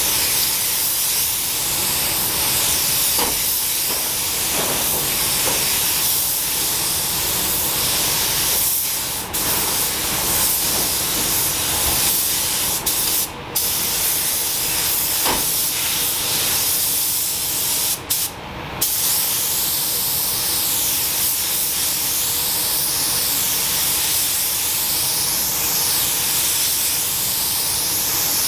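Gravity-feed air spray gun hissing steadily at about 2 bar as it sprays a first coat of paint onto a car body. The hiss stops briefly three times, once for under a second, as the trigger is released between passes.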